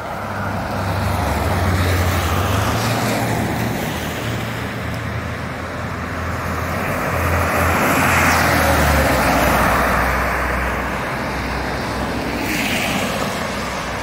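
Fire rescue truck driving past on a soaked road, its engine running and its tyres hissing through the water. The sound swells to its loudest as the truck passes, about eight seconds in, then fades as it pulls away, over steady traffic noise.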